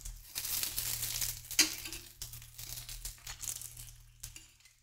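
Folded corn tortilla tacos frying in shallow oil in a stainless steel skillet, crackling and sizzling as metal tongs shift them about while they crisp. The sound thins out and cuts off abruptly just before the end.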